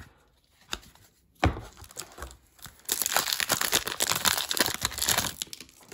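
A baseball card pack's wrapper being torn open and crinkled, a dense crackling that lasts about two and a half seconds. A sharp knock comes about one and a half seconds in, before the tearing.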